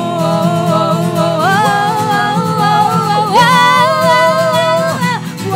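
Live singing over a strummed acoustic guitar. The voices hold long sung notes that step up in pitch twice.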